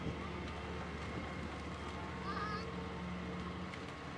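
Diesel engine of a wheeled Hitachi excavator running with a steady low hum as it works among demolished shacks. A brief wavering high call sounds about halfway through.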